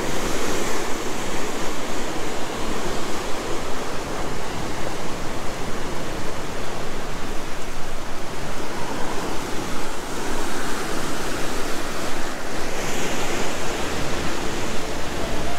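Ocean surf breaking on a rocky shore: a steady, loud rush of waves, with wind rumbling on the microphone.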